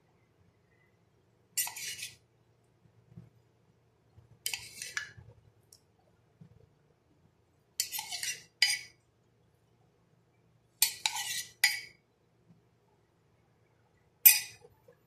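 Metal spoon scraping and clinking against a glass bowl in seven short strokes, some in quick pairs, as yogurt is spread over chana chaat.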